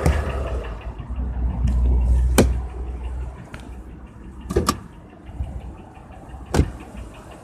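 Ford 5.4 Triton V8 running with a fast, regular ticking knock, the engine knock the owner is showing. Its deep rumble drops away about three seconds in. Sharp clicks come about two, four and a half and six and a half seconds in.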